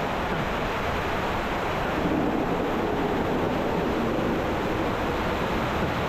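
Steady rush of water, with wind buffeting the microphone.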